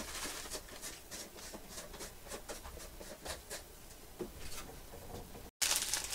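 Plastic pouch of crushed geonppang crackers being handled, with irregular crinkling and crackling. The sound cuts out for an instant near the end, then comes back as louder crinkling.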